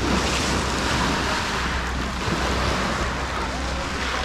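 Sea surf washing onto the beach as a steady rushing noise, with a low wind rumble on the microphone.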